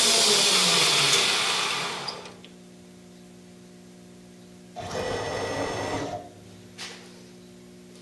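Grizzly G0602 lathe spindle winding down with a falling whine, going quiet about two seconds in and leaving a faint steady hum. About five seconds in the carriage's motor drives it away from the part for about a second and a half, followed by a single click.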